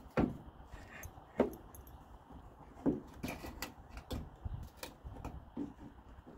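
A string of irregular light clicks and knocks from a plastic truck tail light assembly being worked loose and handled as it is pulled out of its housing.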